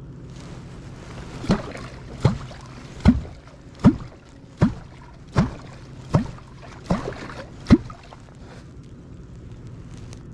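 Wooden catfish clonk driven into the water nine times, a little under a second apart. Each stroke is a sharp slap followed by a deep, falling gloop: the call used to draw wels catfish up from depth.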